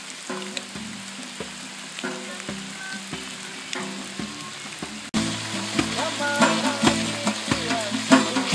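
Acoustic guitar strummed with a hand drum beating time, over the sizzle of fish frying in a wok. The music is quieter at first and gets suddenly louder about five seconds in.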